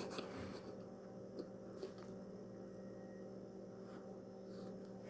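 Faint steady electrical hum, with a few soft short clicks, about a second and a half and two seconds in.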